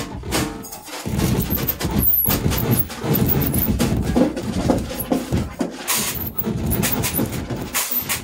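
Experimental improvised music played live: a dense, irregular, noisy texture of scraping and clattering strokes, with thin high squeaking glides about two seconds in.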